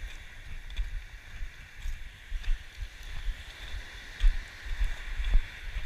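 Footsteps crunching on a pebble-and-sand beach, about one or two a second, with wind buffeting the microphone and a steady hiss of small waves breaking on the shore.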